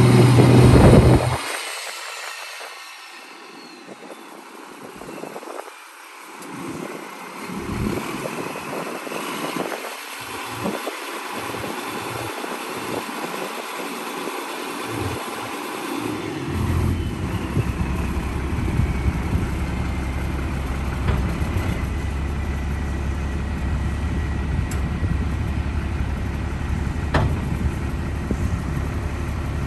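Engine of a 1991 International 7100 dump truck running while its hydraulic hoist lifts the dump bed. It is loud for the first second, quieter and uneven for a while, then from about halfway settles into a steady low drone. A faint high whine slowly falls in pitch through much of it.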